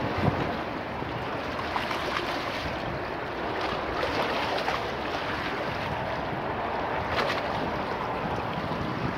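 Choppy river waves lapping and splashing against stone embankment steps, over a steady rush of wind, with a sharper splash right at the start and another about seven seconds in.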